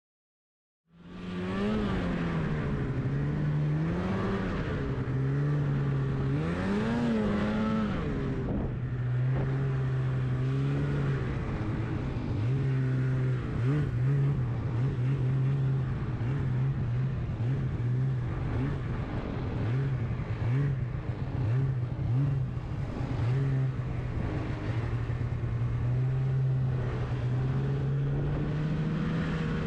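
Snowmobile engine starting up about a second in, revving up and down several times, then holding a steady pitch as the machine runs at an even speed.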